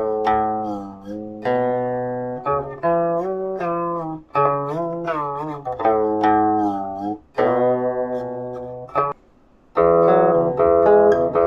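Guqin, the seven-string Chinese zither, played as single plucked notes that ring and die away. Several notes slide up and down in pitch while they sound. There is a brief pause about nine seconds in before playing resumes.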